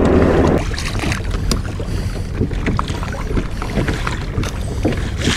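Wind buffeting the microphone and water lapping against a kayak hull at sea, with a rush of wind in the first half second and scattered small knocks and ticks after it.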